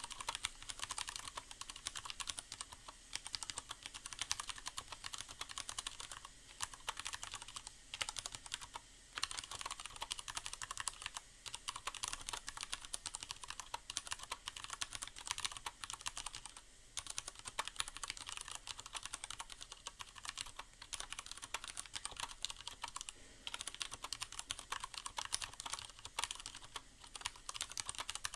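Steady, fast typing on a Leopold FC750R mechanical keyboard with tactile Cherry MX Brown switches and a sound-dampening pad inside the case: a dense run of key clicks, broken by a few short pauses.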